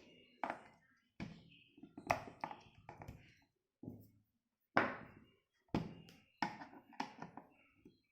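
Irregular sharp taps and clicks, about a dozen, from a clamp multimeter's plastic housing and parts being handled and taken apart.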